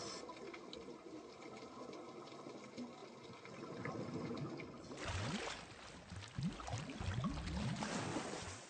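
Water heard from under the surface: a quiet, even wash, then about five seconds in a louder rush of churning water and bubbles with short rising gurgles, as a diver enters the water beside a boat.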